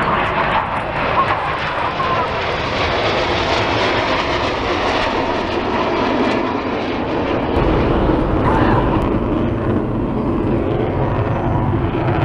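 Jet aircraft flying past at an air show: the Red Arrows' BAE Hawk jets go over in formation. About seven and a half seconds in, the sound changes to a deeper, slightly louder jet rumble from the Avro Vulcan bomber.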